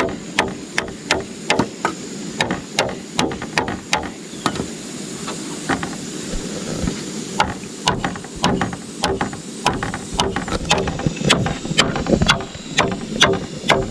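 Rapid, evenly spaced sharp knocks of a tool striking, about two to three a second, with a pause of about three seconds midway.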